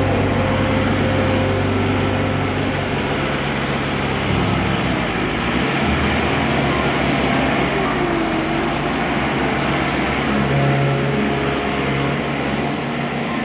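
Excavator running, its low engine note shifting in pitch a few times.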